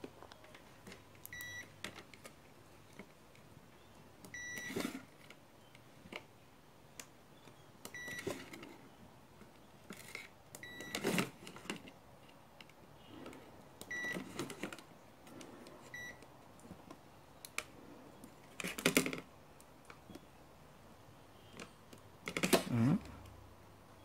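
Digital multimeter's continuity buzzer giving about six short, high beeps as the probes are held on the control board's tactile switches, each beep marking a closed circuit through a switch. Brief knocks and rustles of probes and fingers on the board come between the beeps.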